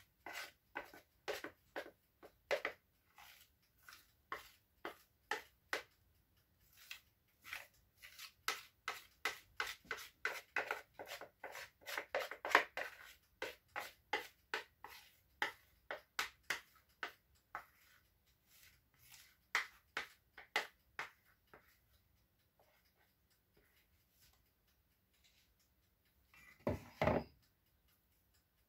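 Spoon scraping sponge-cake batter out of a mixing bowl into a baking pan: a long run of quick scraping strokes, a few each second, thinning out after about twenty seconds. A louder double knock follows near the end.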